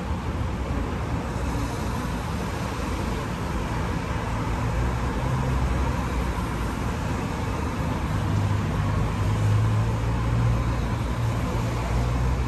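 City street traffic: steady road noise, with a heavier vehicle's engine rumbling louder midway and again in the second half.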